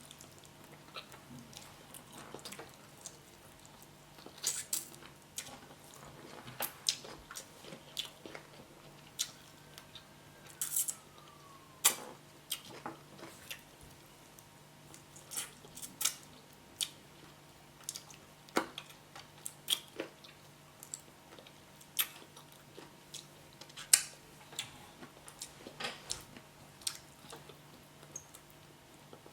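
Close-up chewing of vegetable yam (yam cooked with spinach), with irregular sharp clicks and taps, a few much louder than the rest. A faint steady hum runs underneath.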